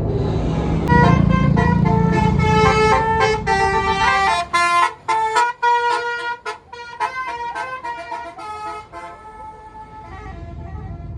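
A tour bus's Basuri telolet multi-tone horn playing a melody of stepping horn notes, with the bus's engine rumbling underneath at first. The notes are held at first, then become short and choppy about halfway through, and fade out near the end.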